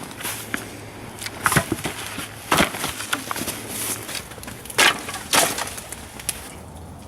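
Wood cracking and snapping: a handful of sharp cracks spread over several seconds.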